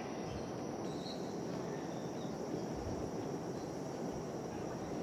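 Steady outdoor background noise: a low, even rumble and hiss with a faint, steady high-pitched tone over it, and no clear distinct events.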